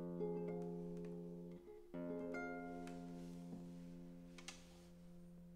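Nylon-string classical guitar playing the closing chords of a song: one chord rings, a new chord is struck about two seconds in, and it slowly dies away.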